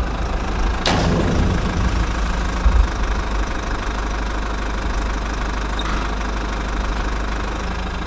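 A steady low engine rumble, like a vehicle idling, with one sharp clack about a second in.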